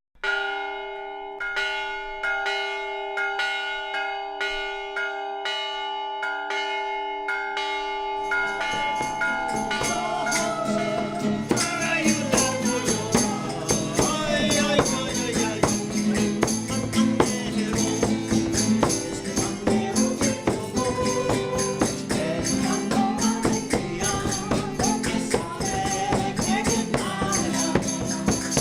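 Background music: a sparse intro of repeated notes over held tones, then a fuller band with percussion and singing comes in about eight seconds in.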